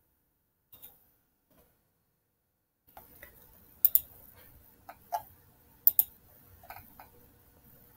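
Computer mouse clicking: a few short, sharp clicks, some in quick pairs, starting about three seconds in after near silence.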